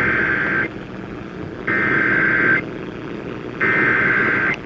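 Emergency Alert System SAME header: three bursts of digital data tones, each just under a second long and about a second apart, over a background hiss. It is the encoded header that opens a new alert, here a tornado warning.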